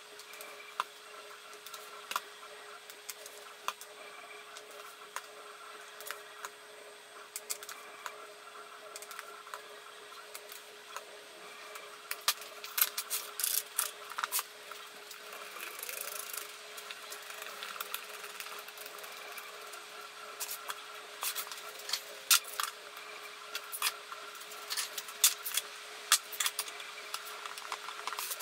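Scattered light knocks and clicks of wooden blocks and pipe clamps being handled and set on a glued end-grain cutting board in its frame, coming more often in the second half, over a faint steady hum.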